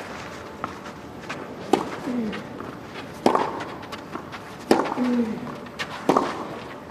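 Tennis ball struck back and forth by rackets in a baseline rally on a clay court: four sharp strikes about a second and a half apart.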